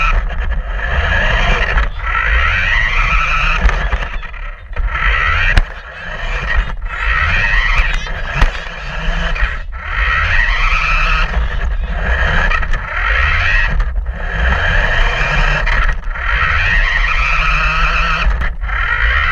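Electric motor and gears of a toy remote-control truck whining in repeated bursts of a second or two, the pitch rising as it speeds up each time, with short breaks between.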